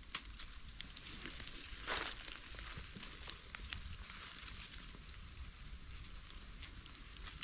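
Dry leaf litter and grass crackling and rustling under gloved hands picking wild mushrooms, with scattered small clicks and a louder rustle about two seconds in.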